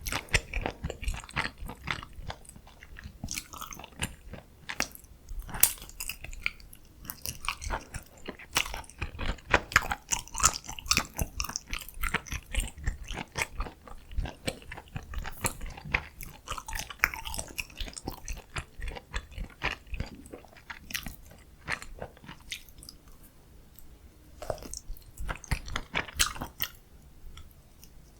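Close-miked eating sounds: irregular bites, chewing and wet mouth clicks, with a brief lull about two thirds of the way through.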